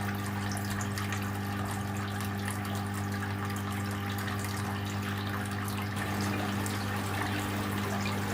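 Tabletop clay-pot fountain running: its small water pump hums steadily while water trickles and splashes over the pots.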